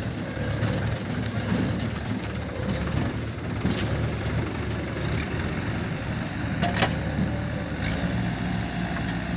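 Mahindra 575 DI tractor's diesel engine running steadily as it pulls a trailer loaded with soil, with a single sharp knock about two-thirds of the way through.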